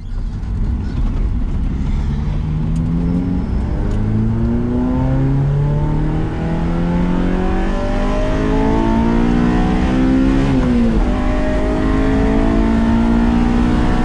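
2001 Honda S2000's F20C four-cylinder engine under acceleration, its pitch climbing steadily through a gear; a gear change about ten and a half seconds in drops the revs, and the pitch then climbs again.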